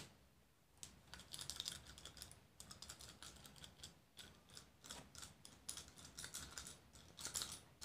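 Slate pencils being snapped and crumbled between the fingers: a faint, irregular run of dry clicks and crackles.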